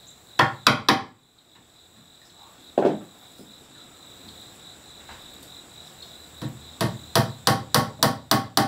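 Hammer driving a wooden wedge into the end of a chair post's tenon in the seat: three quick strikes, a single strike, then a run of about eight strikes at three or four a second near the end. A steady high insect trill runs behind.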